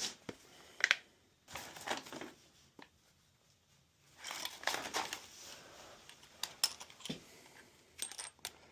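Handling noise: scattered light clicks, clinks and rustling of tools and small metal parts being picked up and moved, with short quiet gaps between.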